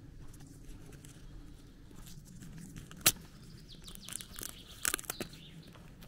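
A small bird chirping, a quick run of high falling notes a little after the middle, over soft footsteps on a dirt road. A single sharp click about halfway through is the loudest sound.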